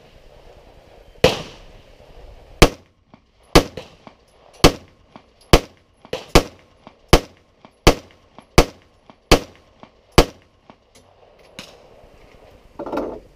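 Smith & Wesson SD9VE 9mm pistol fired in a steady string of about ten sharp shots, roughly one a second, stopping about ten seconds in.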